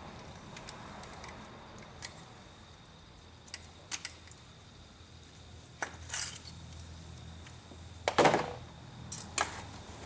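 Needle-nose pliers working a spark plug wire boot loose: scattered small metallic clicks and a few short scraping rustles, the loudest and longest one about eight seconds in.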